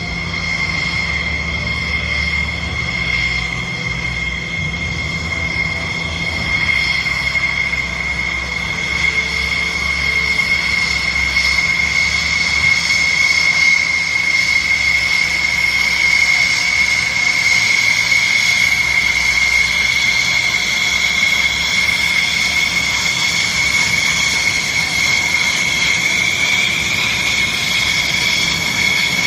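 Thunderbirds F-16 jet engines running at low power, a steady high whine over a low rumble, swelling slightly about a quarter of the way in.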